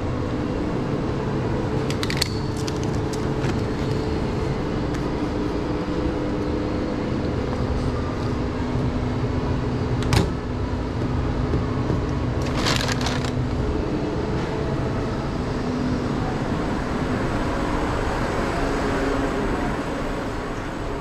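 Steady hum of running kitchen machinery, with one sharp click about ten seconds in and brief rustling noises around two and thirteen seconds.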